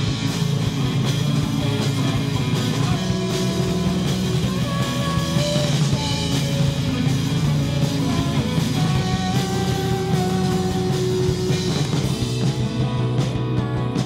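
Rock band playing live on electric guitars, bass guitar and drum kit, held guitar notes over a steady driving beat.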